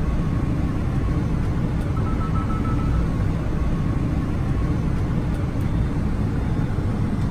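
Steady rumble and rush of air on the flight deck of a Boeing 787-9 on final approach, with a faint, intermittent high beeping tone at times.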